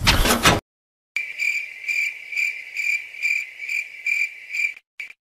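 Cricket chirping: a steady run of evenly spaced high chirps, about two or three a second. It starts abruptly after a second of dead silence and cuts off just as abruptly near the end, like an inserted sound effect.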